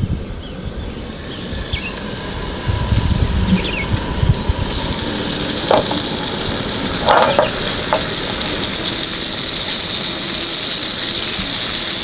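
Salmon fillets frying flesh-side down in hot oil in a nonstick pan, a steady sizzle that sets in about four seconds in after a low rumble, with a couple of light clicks.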